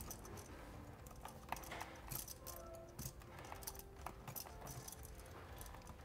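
Faint scattered clicks and small metallic taps of lineman's pliers and copper conductors being retwisted together for a wire-nut splice.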